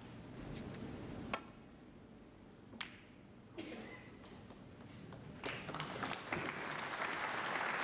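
Snooker cue tip striking the cue ball with a sharp click about a second in, then a second ball click about a second and a half later. From about five seconds in, audience applause builds and becomes the loudest sound.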